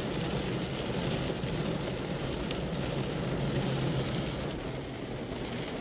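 Heavy rain beating steadily on the car's roof and windshield, heard from inside the car, over the low steady rumble of the car driving.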